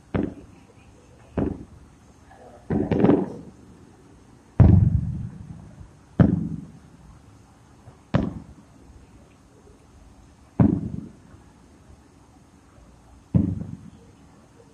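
Aerial firework shells bursting: about eight sharp booms, one to three seconds apart, each fading over about a second. The loudest comes about four and a half seconds in.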